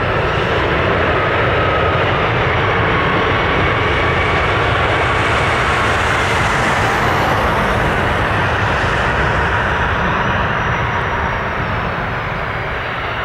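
Airbus A320's twin jet engines during the landing rollout just after touchdown: a steady rushing jet noise with a faint whine, easing off about eleven seconds in as the airliner slows.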